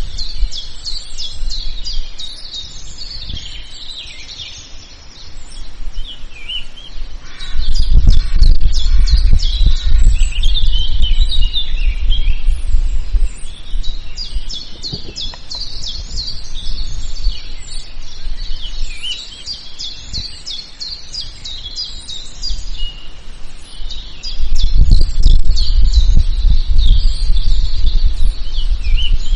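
A chorus of many birds singing and chirping. Two stretches of loud low rumble come in, one about seven seconds in lasting several seconds and another near the end.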